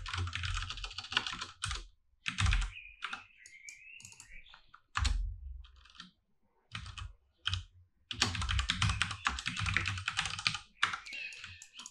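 Computer keyboard typing: quick runs of keystrokes separated by short pauses, with the longest run in the last few seconds.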